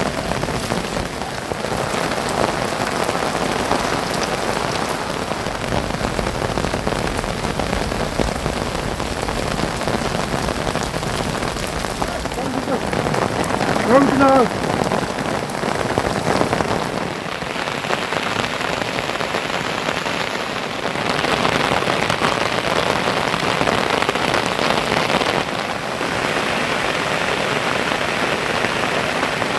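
Heavy monsoon rain falling steadily, a dense even hiss that swells and eases a little over time. About halfway through, a brief pitched call rises above it.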